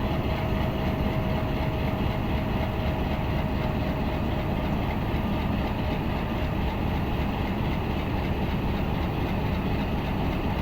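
Pakistan Railways HBU-20 diesel-electric locomotive idling steadily while standing at the platform, with a faint steady whine that fades out about six seconds in.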